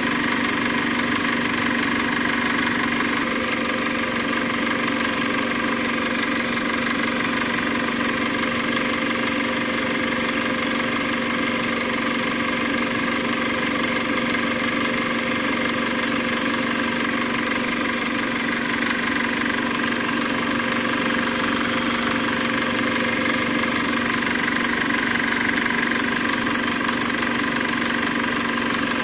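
Steady, unchanging machine-like running noise: a constant hum with hiss.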